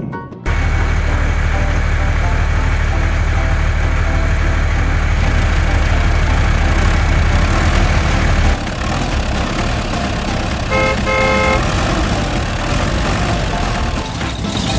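A vehicle engine running steadily, easing off after about eight and a half seconds. Two short horn toots come about eleven seconds in.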